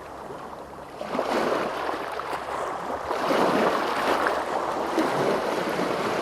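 Sea waves washing onto a shore: a noisy wash that swells about a second in and grows louder from about three seconds in.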